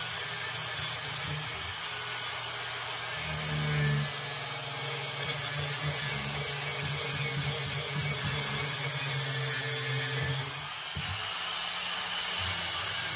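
Angle grinder grinding down a cut-off metal bracket: a steady, high, hissing whine as the disc bites the steel. It eases off briefly about ten and a half seconds in, then bites again louder near the end.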